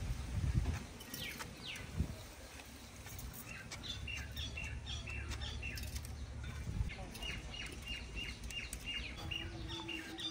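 A small bird chirping in a quick run of short, evenly spaced calls, about three a second, starting a few seconds in, over a low rumble. Two louder knocks come in the first two seconds.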